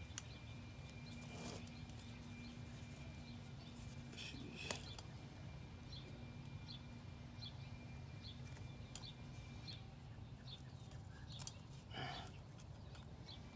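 Faint steady low hum of background noise with small high chirps repeating through it, a sharp click about five seconds in and a short scrape-like noise near the end.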